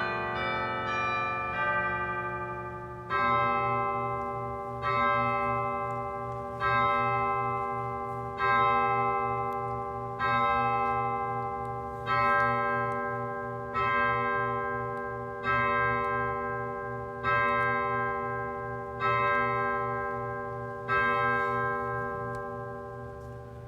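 Church bells: a falling run of bells dies away in the first few seconds, then a single bell tolls eleven times, about one stroke every two seconds, each stroke left to ring on.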